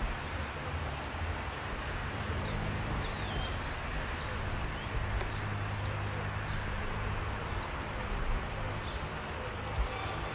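Open-air ambience: a steady hiss with a low rumble underneath, and a few short bird chirps scattered through.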